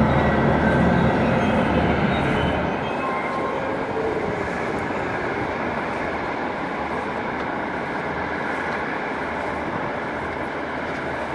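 Steady mechanical rumble with a few faint high-pitched whines in the first few seconds.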